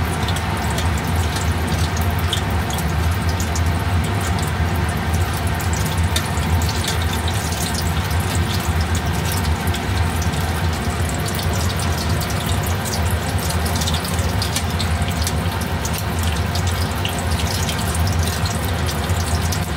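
Vegetable spring rolls deep-frying in hot oil: a steady sizzle with many small crackles and pops, while they are turned with tongs. A steady low hum runs underneath.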